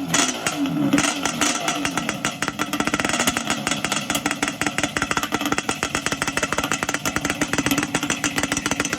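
Yamaha Banshee's two-stroke twin engine running: the revs fall away about a second in, then it settles into a steady, fast-pulsing idle.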